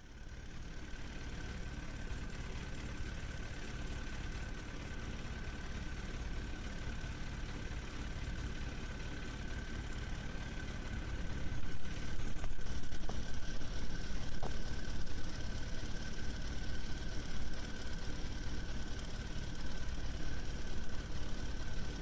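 A steady engine-like hum with a constant high whine, getting louder about halfway through.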